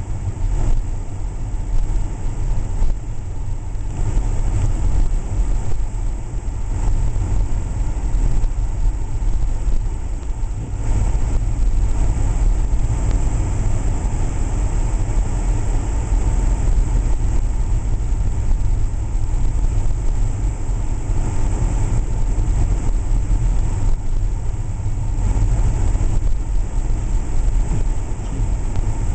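Car driving slowly on snow-covered streets, heard from inside the cabin: a steady low rumble of engine and tyres.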